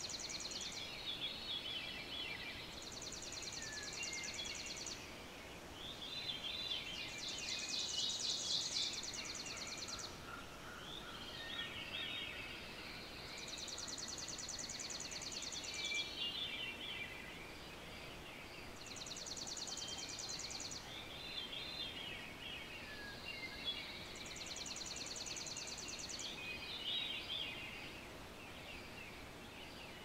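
Dawn songbird chorus: one bird repeats a high, rapid trill of one to two seconds every five or six seconds, while other birds sing shorter chattering phrases in between.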